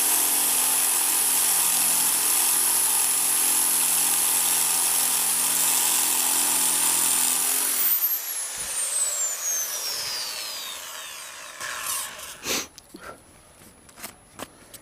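Electric drill running steadily, drilling out a stripped inline-skate frame bolt, then released about eight seconds in so the motor winds down with a falling whine. A few light clicks and knocks follow near the end.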